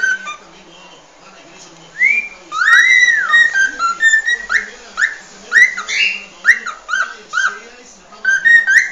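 Cockatiel singing its natural species song. After a quiet couple of seconds comes a run of clear whistled notes that glide in pitch: first a long note that rises and falls, then short upward-sweeping whistles about twice a second.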